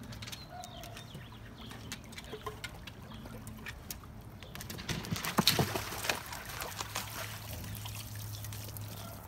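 Pool water splashing and trickling as a Rottweiler swims to the steps and climbs out, with a burst of louder splashing about five to six seconds in and water running off its coat.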